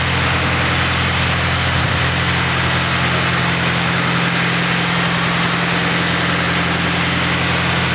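Machinery running steadily: a loud low hum with a thin high whine above it, unchanging throughout.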